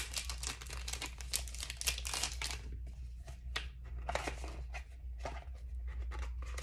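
Packaging crinkling and rustling as small items are rummaged through and handled: a dense run of crackles for the first couple of seconds, then sparser ones.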